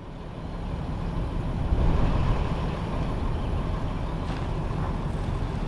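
Heavy truck diesel engine running with a low, steady rumble. It grows louder over about the first two seconds and then holds steady.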